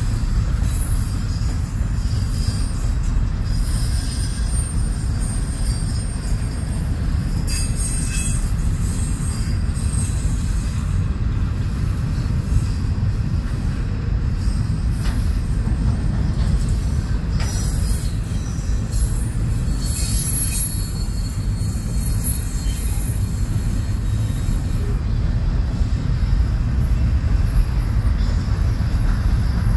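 Double-stack intermodal freight train rolling past: a steady low rumble of steel wheels on the rails, with thin high-pitched wheel squeals coming and going.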